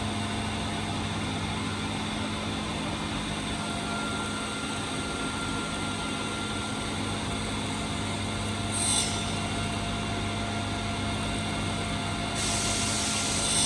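Water-cooled stone-cutting saw running with a steady motor hum, set up to mitre two stacked tiles at 45 degrees. Near the end a higher hiss rises as the blade starts into the stone.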